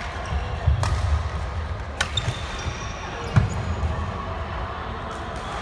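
Badminton rally: three sharp racket-on-shuttlecock hits about a second or more apart, over the thud of players' footwork on the court, with a few short shoe squeaks.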